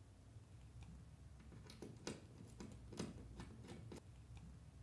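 Faint clicks, about two or three a second from a second and a half in, as a Phillips screwdriver is turned by hand to drive a screw through a metal Z-bar into the wall.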